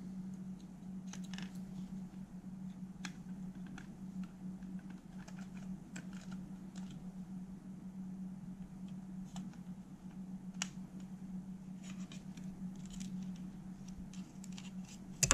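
Scattered light clicks and scratches of hands working apart the plastic cassette door and holder assembly of a Sony TC-K611S cassette deck, over a steady low hum.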